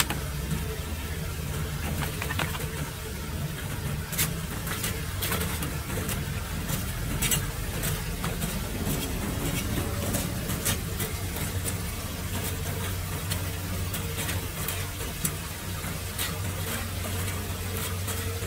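Small hand rake scraping and clicking against a metal drain grate as leaves and debris are dragged out, over a steady low engine hum.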